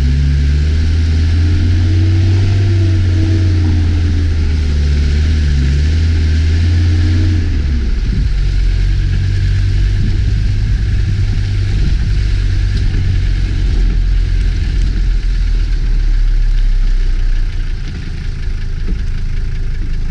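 Motor vehicle engine running, its pitch rising and falling for the first several seconds, then settling into a steadier low rumble.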